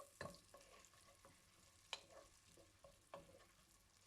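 Onion frying in hot butter and oil with a faint sizzle, stirred with a spatula that knocks against the pan about three times.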